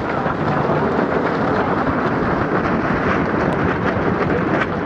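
Steady wind buffeting the microphone on open water, a rough rushing rumble with no distinct events.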